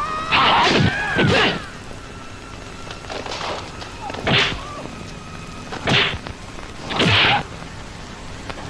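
Dubbed martial-arts fight sound effects: about six sharp punch and kick hits with whooshes, some landing with a heavy thump, in the style of 1980s Tamil-film karate sound effects.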